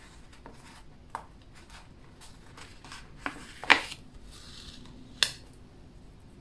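Paper planner stickers being peeled off a page and pressed back down by hand: soft paper rustling with a few sharp clicks of fingers and nails on the page, the loudest about two thirds through.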